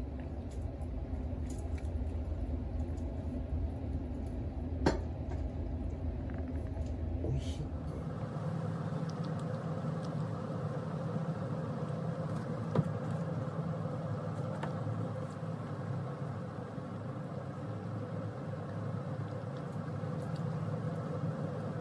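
Steady indoor hum whose tone changes about eight seconds in, with a few sharp clicks.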